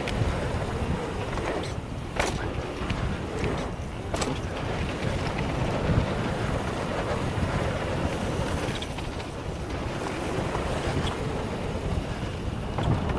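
Mountain bike descending a rough downhill trail at speed: wind rushing over the microphone and the tyres and bike rattling over the ground, with a few sharp knocks from bumps, clearest about two and four seconds in.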